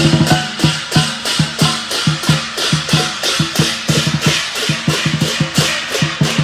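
Lion dance percussion: a large drum struck in a steady, driving rhythm of about three strokes a second, with cymbals crashing along.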